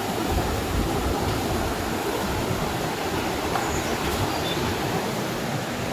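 Steady rushing of a flooded river's fast water.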